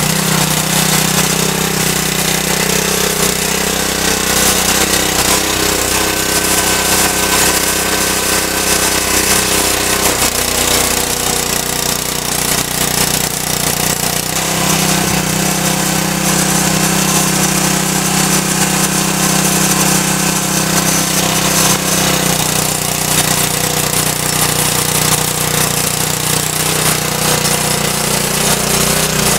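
Honda 6.5 HP single-cylinder engine of a Cub Cadet RT 65H rear-tine tiller running hard under load as its reverse-turning tines churn through soil. The engine note shifts several times as the load on the tines changes.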